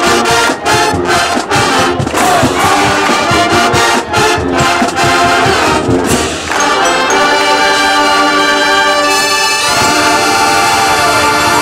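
Marching band playing: brass chords over a driving drum beat for the first half, then the drums stop about halfway and the horns hold one long chord.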